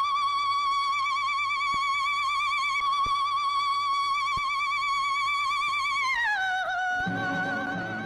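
A soprano voice holds one very high note with a wide vibrato for about six seconds, then slides down to a lower held note as the orchestral accompaniment comes back in near the end. A few faint clicks sit under the long note.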